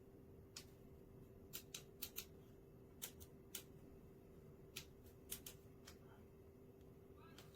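Faint, low-level room tone with a steady hum and about a dozen short, sharp clicks at irregular intervals.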